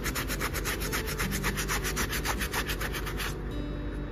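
Damp hair-removal sponge pad scrubbed rapidly back and forth over the skin of a hairy leg: a quick, even rasping at roughly seven strokes a second that stops about three seconds in.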